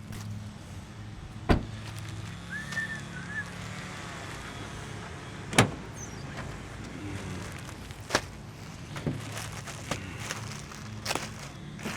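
A vehicle engine idling with a steady low hum, broken by several sharp clunks, the loudest about one and a half and five and a half seconds in.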